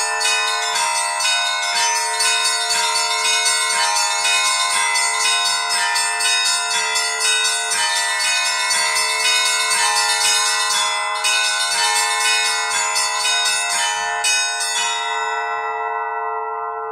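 Seven Orthodox church bells rung in the traditional Easter peal by an automatic electronic bell-ringing system, with fast, dense strikes over sustained ringing. About fifteen seconds in the strikes stop and the bells ring on, fading.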